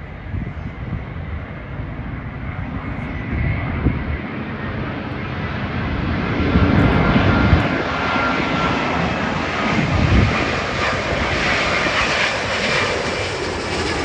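Airbus A350-900 airliner's Rolls-Royce Trent XWB jet engines on final approach with gear down, a rumble with a thin whine that grows steadily louder as the jet closes in and passes low overhead; the whine sets in about six seconds in and slides slightly lower in pitch as it passes.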